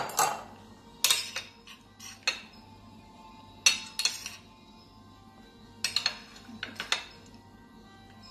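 Metal knife and spoon clinking and scraping against a cut-glass bowl and a china dish while spreading butter mixture and scooping grated cheese: a series of sharp clinks, the loudest right at the start.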